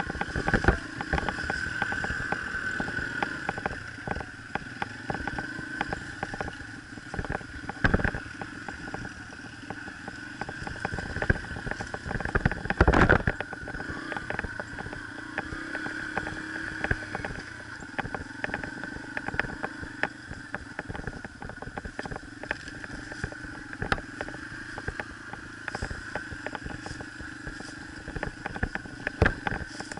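Yamaha TT-R125 dirt bike's air-cooled single-cylinder four-stroke engine running at low trail speed, with frequent knocks and rattles from riding over rough ground. There is a heavy jolt about 8 seconds in and a louder one about 13 seconds in.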